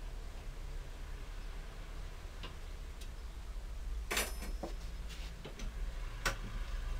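Bent steel rods clinking together with a brief metallic ring as a freshly bent rod is laid onto a pile of others on a steel workbench, about four seconds in; a second sharp metal click follows about two seconds later. A steady low hum runs underneath.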